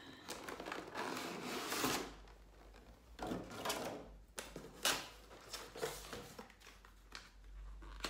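Cardboard box and packaging handled while a USB load tester is unboxed. There is about two seconds of steady rustling, then scattered short rustles and knocks.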